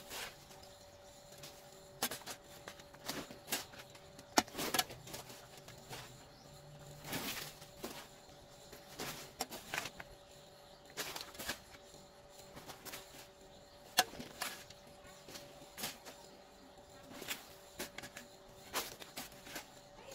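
Irregular knocks, taps and short scrapes every second or two, from hands-on building work; the sharpest knocks come about four and fourteen seconds in.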